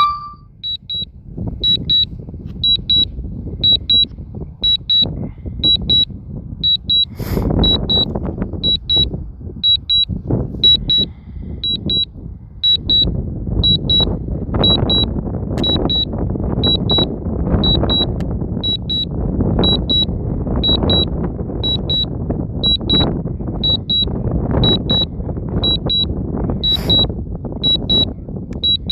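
Drone remote controller's warning beep, sounding in quick pairs about once a second, over wind buffeting the microphone. Two sharp knocks stand out, about seven seconds in and near the end.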